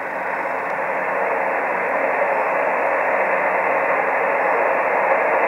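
Shortwave band noise: steady hiss from a Kenwood TS-480 receiver in SSB mode on the 20 m band, cut off sharply above about 2.5 kHz by its 2.4 kHz filter, with no station coming through. The hiss gradually rises in level as the receiver's automatic gain control recovers.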